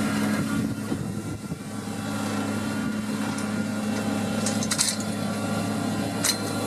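New Holland T7040 tractor's six-cylinder diesel engine running steadily while seed drilling, dipping briefly in loudness about a second in. A few sharp metallic clicks near the end.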